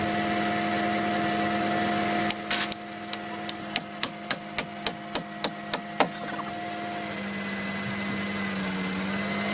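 An engine running steadily, with a quick run of about fourteen sharp knocks, three or four a second, starting a couple of seconds in and stopping around the middle.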